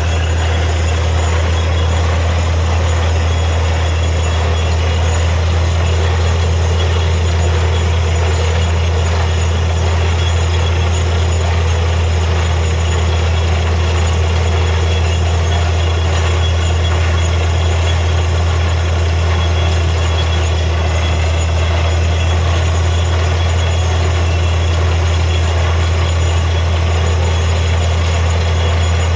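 Truck-mounted borewell drilling rig running steadily as it drills: a constant deep engine drone with a dense, even noise over it.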